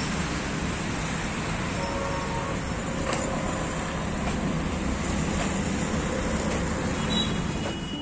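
Steady road traffic noise from cars and scooters passing on the road.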